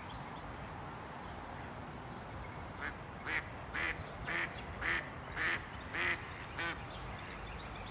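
A duck quacking in a run of about seven quacks, about two a second, starting about three seconds in, over a steady background hiss.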